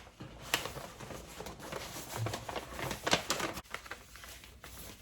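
Packaging being handled and folded by hand: rustling and scraping, with sharper clicks about half a second in and about three seconds in.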